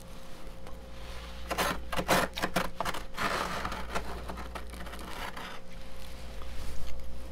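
Metal spoon scraping and scooping thick frost off a freezer wall: a quick run of short scrapes about a second and a half in, then a longer rasping scrape and a few lighter ones.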